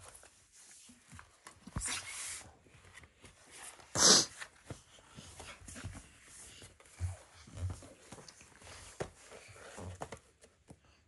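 Paper rustling as a toddler turns and handles the pages of a thick picture book: two louder sweeps of pages about two and four seconds in, the second the loudest, then softer handling with a few light bumps.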